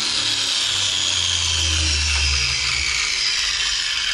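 Electric angle grinder with a carbide grinding wheel, mounted in a lawn mower blade sharpener, running steadily at full speed with a high whine.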